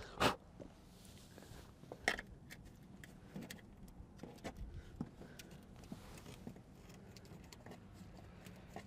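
Hand tools and metal fittings clinking and knocking while a diesel bunk heater's fittings are worked loose. There is a sharp knock about a quarter second in, another about two seconds in, and scattered small clicks between.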